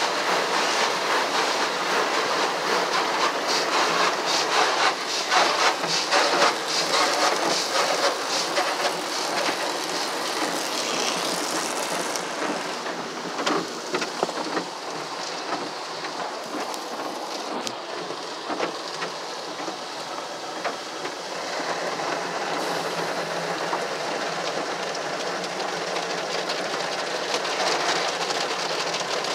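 Ryko Velvet Touch 2000 car wash's red cloth brushes spinning over the car, slapping and swishing across the windshield amid spraying water, heard from inside the car. The slapping is heaviest a few seconds in, eases off in the middle and picks up again near the end.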